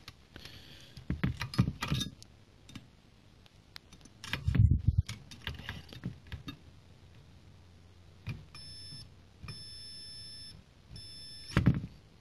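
Multimeter continuity beeper sounding three times in the last few seconds, the middle beep the longest, with the probes held across the set's protection diode in reverse: beeping in both directions shows the diode is a dead short. Before the beeps come handling clicks and knocks, the loudest two low thumps about four to five seconds in and just before the end.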